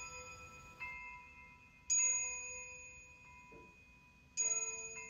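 Background music: three soft struck chime-like notes, each ringing and slowly fading, the second and third louder than the first.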